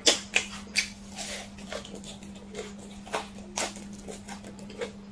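Close-miked chewing of sauce-glazed fried chicken: irregular crisp crunches and wet mouth smacks, several a second, over a faint steady low hum.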